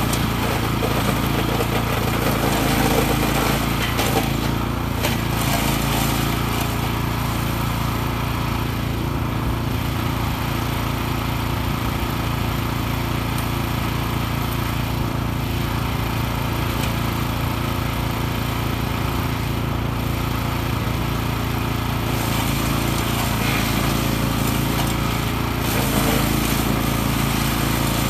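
A PRO-14HP wood chipper's 14 hp engine running steadily under load, with coarser, slightly louder stretches near the start and again near the end as branches are fed in and chipped.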